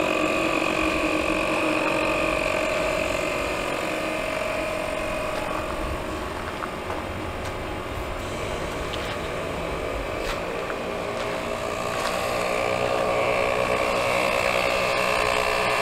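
Vehicle-mounted air compressor running steadily, pumping air through a coiled hose into a truck tire. It dips a little in level midway, then picks up again.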